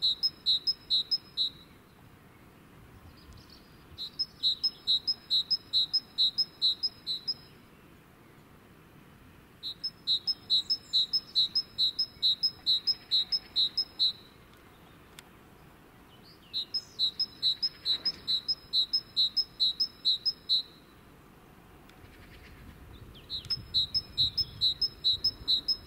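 High chirping in a fast even train, about four chirps a second, coming in bouts of three to four seconds with short pauses between.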